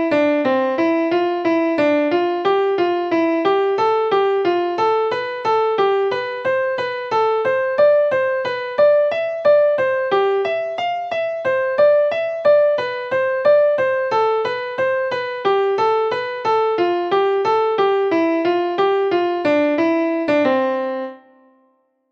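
Piano playing a single-line melody in steady eighth notes, about three notes a second, stepping up and down within about an octave. The exercise ends on a held low C about a second before the end, then stops.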